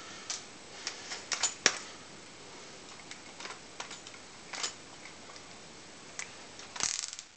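Scattered light clicks and taps of small hardware being handled, with a short clatter near the end.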